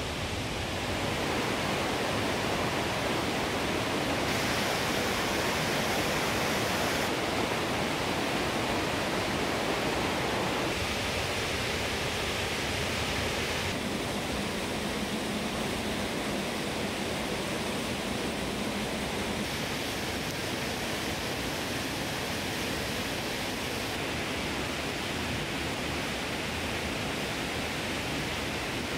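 Steady rushing of water from a river running through a rocky canyon, an even hiss with no individual splashes.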